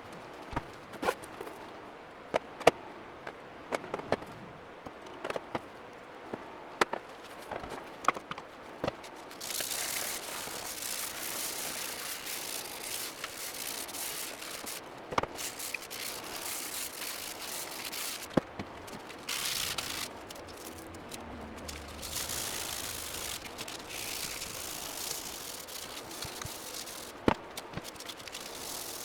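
Sharp clicks and knocks of hard parts being handled, then hissing in several bursts of a few seconds each with short pauses, typical of an aerosol spray-paint can being sprayed in passes.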